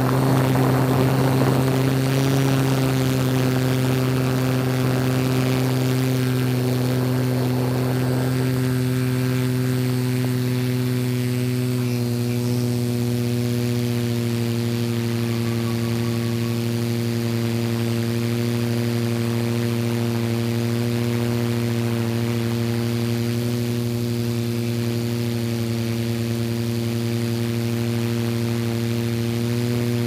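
Multirotor drone's electric motors and propellers humming steadily, with the pitch shifting slightly down a few times in the first half.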